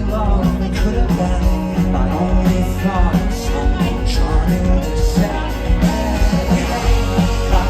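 Live rock band playing loudly, with singing over a steady drum beat.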